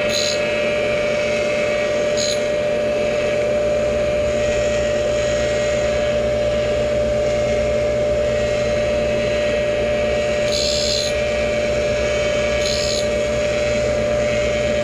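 Tool and cutter grinder running with a steady motor whine and hum, the wheel grazing the teeth of a 15-tooth milling cutter in four short gritty hisses while sparking out the final pass.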